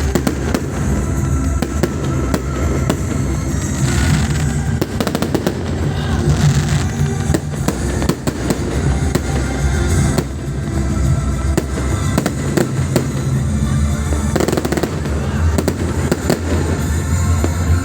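Many fireworks and firecrackers going off at once: a continuous din of overlapping bangs and crackles over a low rumble, with no pause.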